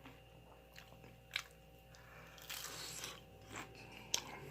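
A person chewing and crunching food with the mouth, faintly, with a sharp crunch about a second and a half in and a longer crackly crunch around the middle.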